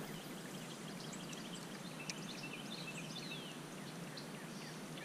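Small birds chirping and calling over a steady background hiss, with many short chirps and a longer falling whistle about three seconds in.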